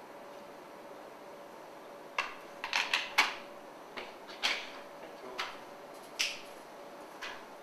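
About ten sharp, irregular clicks and knocks of hard objects being handled, starting about two seconds in, over a faint steady hum.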